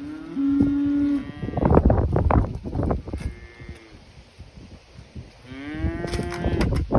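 A farm animal calls twice, about five seconds apart. Each is one long call held at a steady pitch, and the second rises slightly at its start. Loud rough rustling and knocking comes just after the first call.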